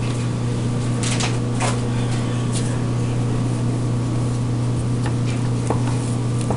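A steady low hum, with a few faint taps and scrapes from a utensil stirring shredded cheese and mayonnaise in a plastic bowl.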